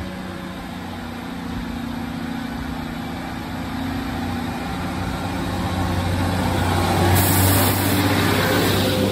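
Northern Class 150 Sprinter diesel multiple unit running past along the platform, its underfloor diesel engines droning steadily and growing louder as it draws level. A hiss of wheels on rail joins about seven seconds in.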